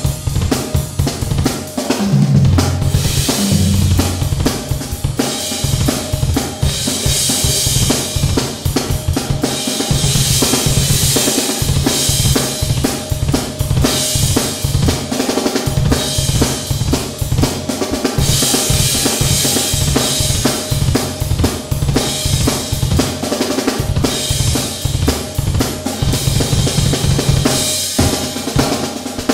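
Acoustic drum kit played in a continuous groove of kick drum, snare and hi-hat, with cymbals ringing out in several stretches of a few seconds each.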